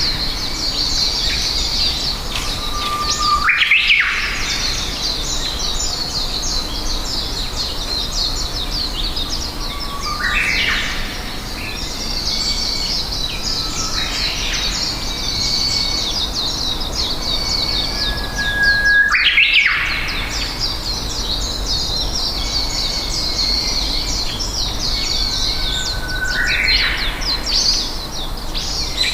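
A chorus of many small birds chirping densely and without a break. A louder rising whistled call repeats about four times, every seven or eight seconds.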